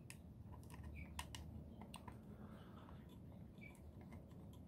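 Faint, scattered small clicks and ticks of a small screw being started by hand into the metal housing of an LED floodlight.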